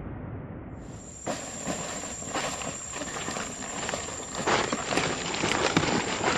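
Dry leaf litter crunching and rustling in an irregular, step-like rhythm as a car tyre is rolled and people walk over the forest floor, under a steady high-pitched insect drone. The tail of an intro sting fades out in the first second.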